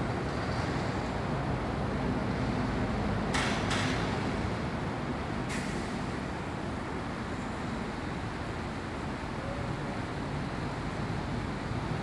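Freight train of cement tank wagons rolling away along the track, a steady low rumble that slowly fades. Three short hisses come a few seconds in, the first two close together.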